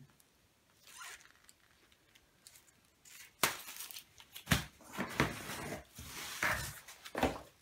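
Cardboard box and shrink-wrapped firework packs being handled. After a quiet start, rustling, crinkling and knocks begin about three seconds in, with several sharp peaks.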